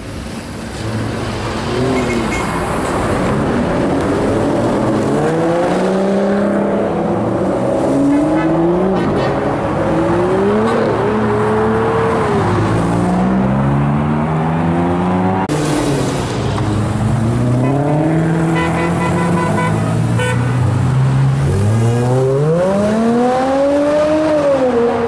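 Sports car engines revving and accelerating hard as cars drive past. The engine pitch climbs and drops again and again with gear changes, with one long rise and fall near the end.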